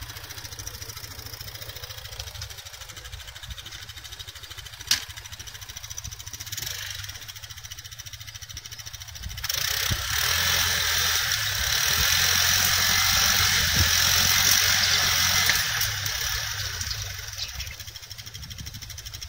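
Engines of a mud-stuck side-by-side buggy and the pickup towing it, running low at first with a single knock about five seconds in, then revving together under load from about halfway through as the two pull the buggy out of the mud, easing off near the end.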